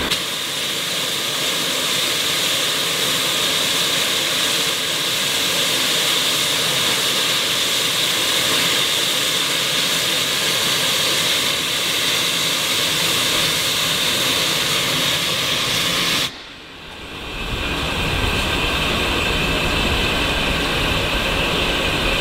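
Loud, steady hiss of steam from GWR 42xx 2-8-0 tank engine 4270. It stops abruptly about sixteen seconds in, and a lower rumbling noise follows.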